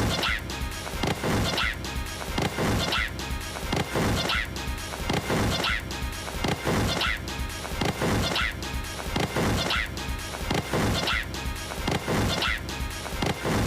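Music with a steady, repeating beat of hits, a little more than one a second.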